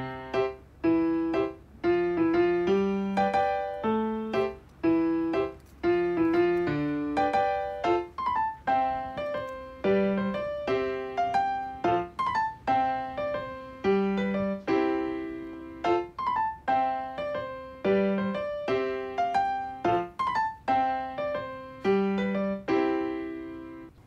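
Background piano music: a melody of single struck notes and chords, each note fading after it is played.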